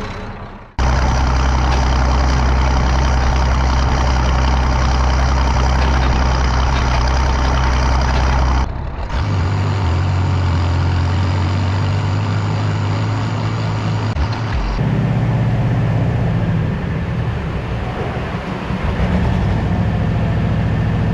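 Tractor engines running steadily in a series of cut-together clips: the big Allis-Chalmers tractor pulling an emptied manure spreader across a field, then a smaller orange loader tractor in a barn. The engine note changes abruptly at each cut, about a second in, around nine seconds and around fifteen seconds.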